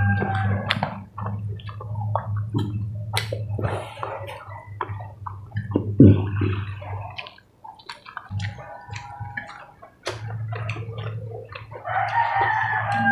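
Close-up eating sounds: chewing, lip smacking and the click of forks on plates, over a steady low hum that drops out for a couple of seconds midway. A long, drawn-out call with a slightly falling pitch comes at the start and again near the end.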